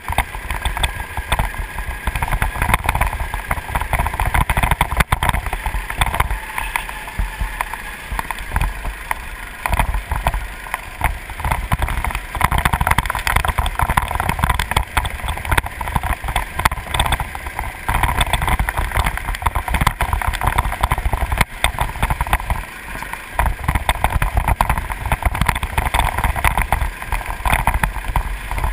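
Go-kart engine running at speed, its pitch rising and falling as the throttle is worked through the corners, mixed with heavy wind buffeting on the onboard microphone.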